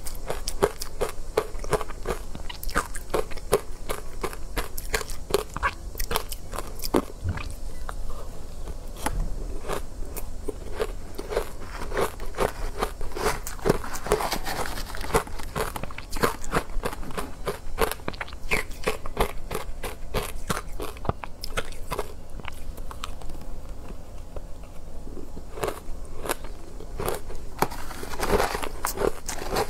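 Close-miked chewing of soft, powdery ice coated in matcha powder: a dense, irregular run of crisp crunches and crackles as the ice is bitten and chewed.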